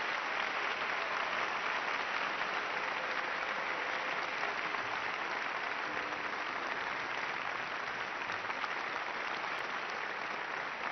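Concert audience applauding, a dense, steady clapping.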